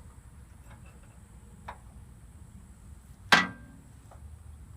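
A metal tool knocking against metal: one loud clank with a short ring a little over three seconds in, after a fainter click.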